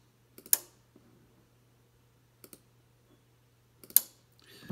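Band-switching relays in a Ten-Tec Pegasus transceiver clicking sharply twice, about half a second in and again near the end, each just after a soft computer mouse click. The relays are the sign that the radio is setting up its filters for the newly selected band. A faint steady hum sits underneath.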